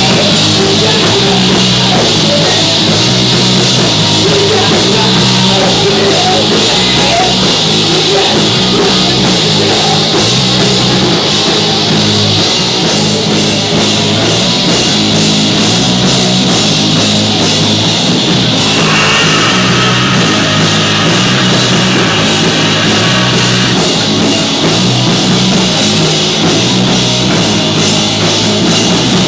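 Live rock band playing a loud, hard song on drum kit and amplified instruments.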